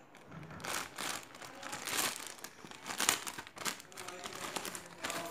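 Plastic courier mailer bag crinkling and rustling in irregular bursts as hands pull it open, starting about half a second in.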